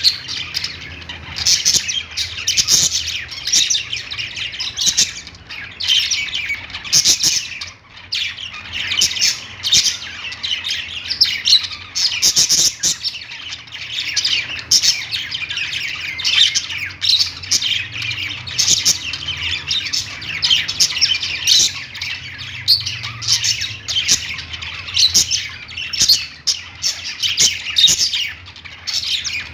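A group of budgerigars chirping and warbling without pause, many short overlapping high calls at once.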